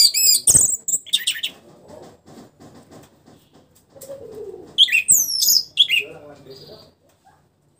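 Orange-headed thrush (anis merah) singing. It gives loud bursts of quick, high arching notes at the start and again about five seconds in, with quieter gaps between.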